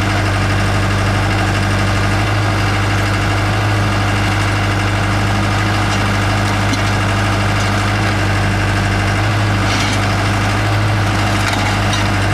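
Skid steer loader's engine running at a steady speed, a constant low hum with no change in pitch or level.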